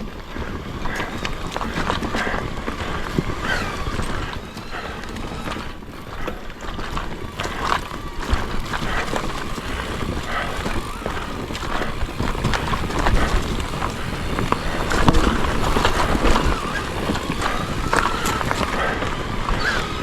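Wind rushing over the microphone while riding a forest trail, with scattered knocks and a faint wavering whine, getting louder in the second half.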